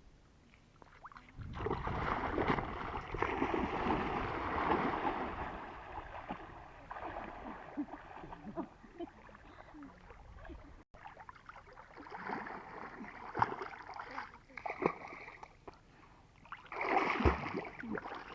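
Water splashing and sloshing in shallow water, in uneven bursts, with the loudest splashing near the end.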